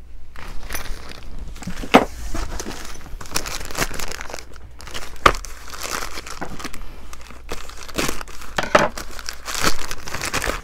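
Plastic packaging bags crinkling and rustling as items are handled and unwrapped, with a couple of sharp knocks about two and five seconds in.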